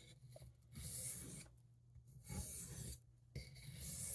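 D2-steel stockman pocketknife blade stroked lightly across an Arkansas whetstone, three faint scraping strokes about a second apart. The blade rides with no pressure beyond its own weight, a light finishing pass after the burr has been removed.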